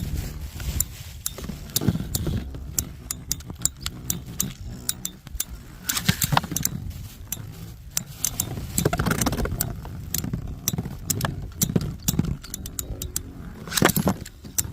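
Metal Fight Beyblade spinning tops clashing: many sharp metallic clicks and clinks at irregular intervals, over a low rumble of wind on the microphone.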